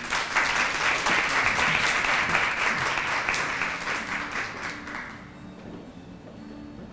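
Small audience applauding, the clapping fading out about five seconds in.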